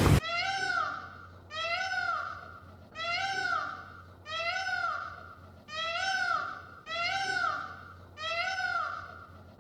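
An animal calling over and over: about nine short, high, pitched calls, roughly one a second, each rising then falling in pitch.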